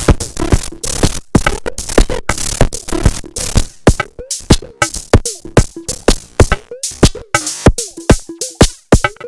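Korg Volca Drum pattern run through a Bastl Kastle 2 FX Wizard effects unit: a fast, loud electronic drum-machine rhythm of sharp percussive hits with short warbling pitched blips.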